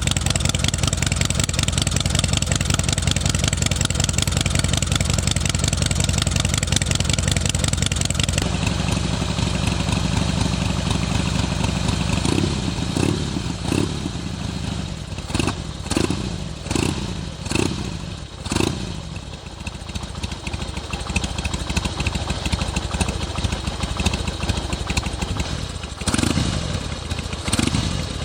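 Harley-Davidson Twin Cam 88 45-degree V-twin, breathing through Screamin' Eagle mufflers, running just after being started. It runs steadily at a fast idle for about eight seconds, then drops lower and gives a run of short revs about a second apart before settling to an idle, then picks up again near the end.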